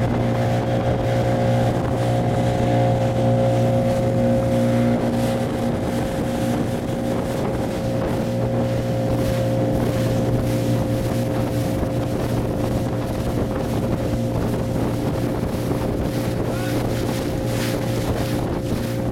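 Outboard motor on a small aluminium boat running steadily at cruising speed, with water rushing and spraying past the hull and wind buffeting the microphone.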